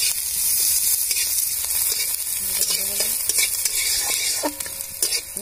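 Chopped onion, garlic, dried red chillies and nigella seeds sizzling in mustard oil in an aluminium kadai, with a metal spatula scraping and stirring across the pan. The tempering is being fried until it turns lightly red.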